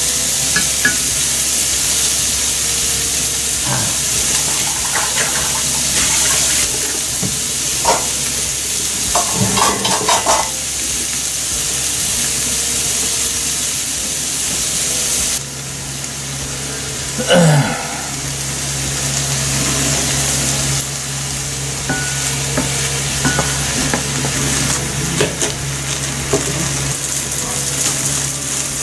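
Vegetables and meat sizzling in a hot frying pan while being stirred and turned with a wooden spatula, with scrapes and knocks of the spatula against the pan. About halfway the sizzle drops and a steady low hum comes in under it.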